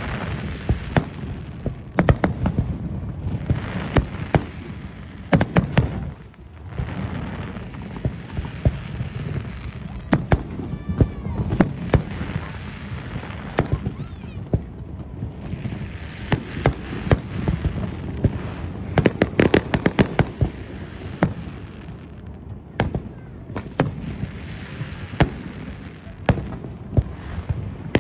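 Aerial fireworks bursting in rapid, irregular succession: dozens of sharp bangs, some in quick clusters, over a continuous crackling hiss. The display thins briefly about six seconds in, then builds again into dense volleys.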